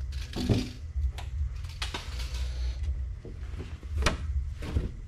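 Scattered light knocks and clacks of items being handled, with a few brief rustles, over a steady low hum.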